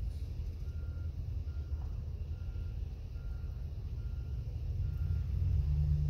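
Pickup truck engine running low and growing louder near the end. A faint short beep repeats about once a second.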